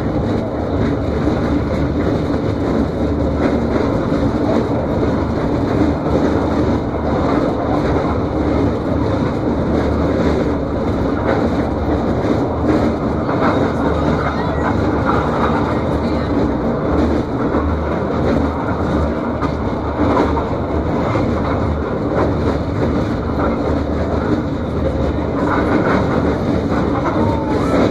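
Mine hoist cage descending the shaft at about 11 miles an hour, with a steady rumble and a constant fine rattle of the moving cage.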